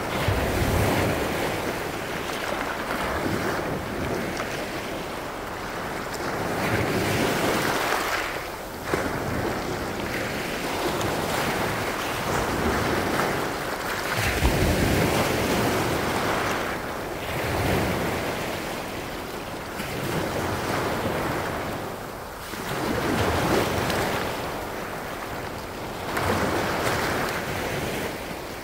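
Small Baltic Sea waves washing in over a pebble beach and drawing back, swelling and easing every few seconds. Wind gusts buffet the microphone, most strongly about halfway through.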